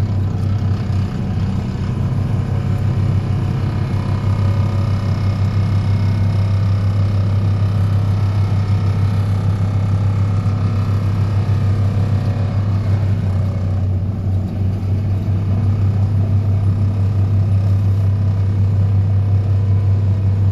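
DPD350T excavator-mounted vibratory hammer running steadily, vibrating a steel sheet pile into the ground with a loud, constant low hum.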